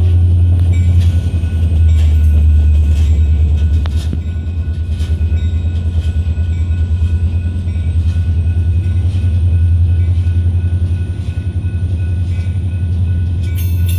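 Freight train of double-stacked container cars rolling past close by: a steady low rumble with wheels clicking over rail joints about once a second.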